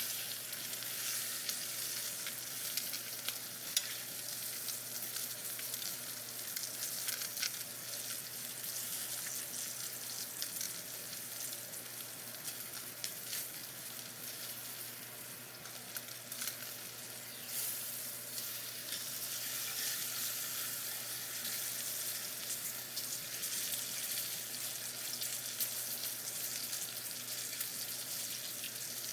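Steak searing in a very hot pan with butter: a steady sizzle with a few scattered crackles.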